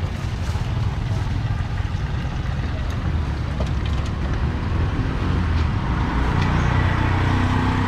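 Road traffic on a city street: a steady low rumble of passing vehicles, growing a little louder in the second half.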